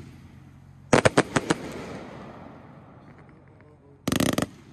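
100-shot firework cake firing: a rapid run of about six sharp bangs about a second in, fading away over the next second or so, then another short, dense burst of reports near the end.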